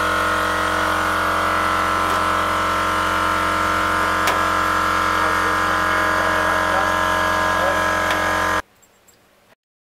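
Compressed air blowing steadily through a Cut 50 ST plasma cutter as it purges its air line and torch: a steady hiss with a whistling tone and a low hum. It cuts off abruptly about eight and a half seconds in.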